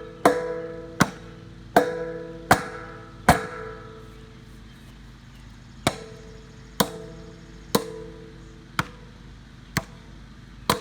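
Sledgehammer blows on an old steel water heater, each strike ringing out like a bell: five quick blows, a short pause, then six more at a slightly slower, steady pace.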